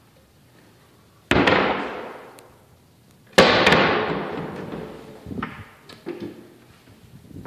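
Two loud, sudden bangs about two seconds apart, each dying away over a second or more, followed by a few smaller knocks near the end.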